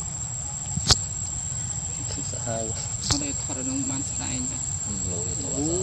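Steady high-pitched insect drone, with faint voices underneath and two sharp clicks, one about a second in and one about three seconds in.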